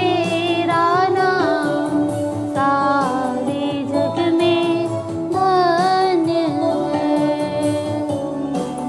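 A woman singing a Hindi Marian hymn solo, with sliding, ornamented notes, over instrumental accompaniment; her voice drops out about two-thirds of the way through, leaving the accompaniment playing.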